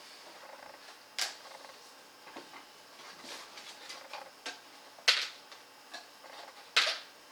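Light clicks and rustles of hands handling packaging pieces, with three sharp clacks: about a second in, about five seconds in, and near the end.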